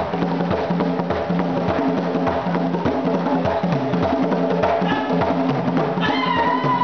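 Percussion-driven dance music: fast, even drum and wood-block-like strikes over repeating low tones. A high, wavering call rises over the beat about six seconds in.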